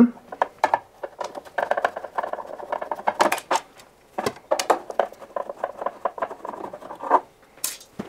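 A long screwdriver undoing screws under a dishwasher's plinth: a run of small metal clicks and scrapes, with the panel being handled.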